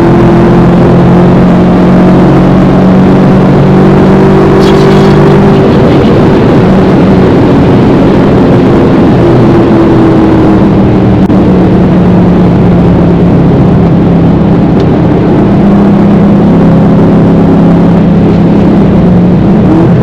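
Holden VF Commodore's engine heard from inside the cabin under load, its pitch slowly falling and rising as the car is driven, over steady road and wind noise.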